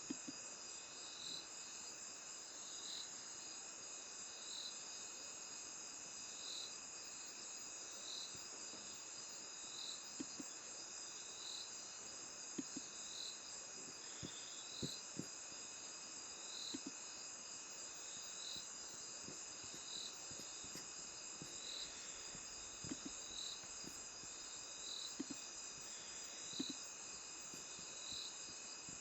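Faint insects chirping: a steady high-pitched trill with a short chirp repeating about every second and a half. Occasional soft clicks are scattered through it.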